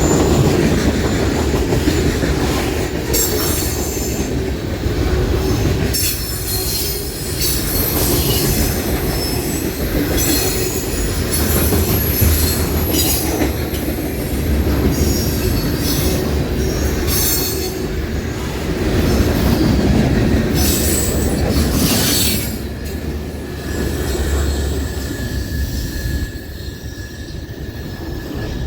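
Freight train cars rolling past, a steady rumble with intermittent high-pitched wheel squeal coming and going. It gets somewhat quieter a little past three-quarters of the way through.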